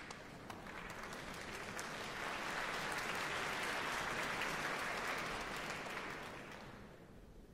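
Concert-hall audience applauding; the clapping swells to a peak about halfway through, then dies away near the end.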